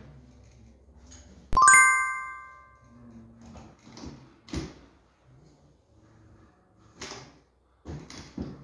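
A loud, bright metallic chime rings once about one and a half seconds in and fades over about a second. After it come several short scraping sounds, from a drywall corner box being pushed along the plasterboard joint on its pole as it spreads joint compound.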